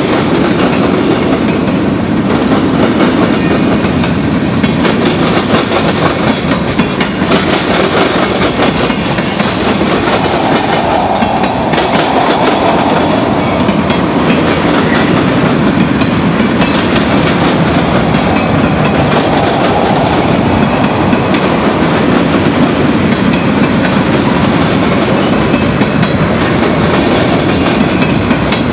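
Freight train of boxcars, tank cars and covered hoppers rolling past at close range: a loud, steady rumble of steel wheels on rail, with rapid clicking as the wheels cross the rail joints.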